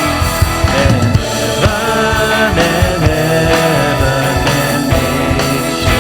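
Rock-style band music with guitars and drums, steady and loud.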